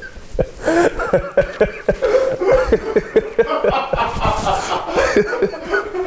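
A man laughing, a quick run of short chuckles with a few mumbled words mixed in.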